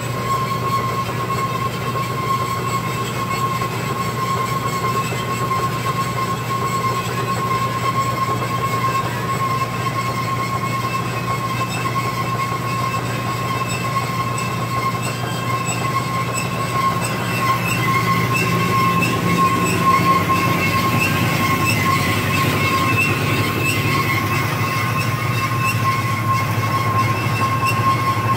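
Jet HBS-1018W horizontal bandsaw running, its 2 HP single-phase motor humming steadily under a constant high squeal from the blade, which runs without coolant and so squeaks. It grows slightly louder after about 18 seconds.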